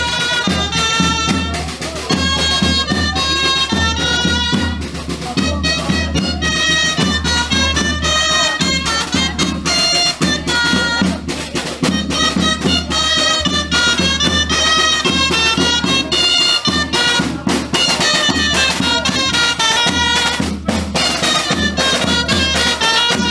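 A dulzaina, the Castilian double-reed folk shawm, playing a melody of quick, short notes, with a snare drum and a larger drum beating time under it.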